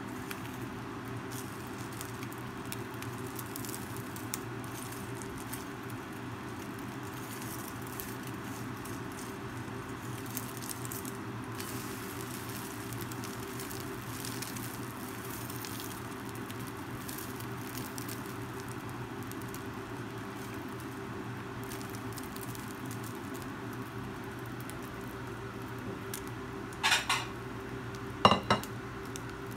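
Egg frying in a stainless steel hex-engraved pan: a steady light sizzle and crackle with a low hum underneath, as a silicone spatula pushes the egg across the pan. Near the end come two sharp clinks of a utensil against the pan.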